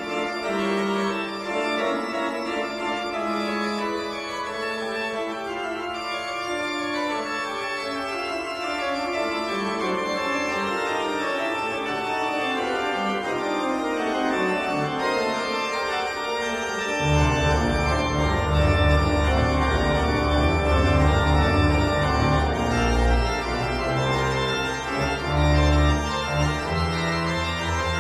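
Background music of sustained, held chords; a deep bass line comes in a little past halfway and the music gets louder.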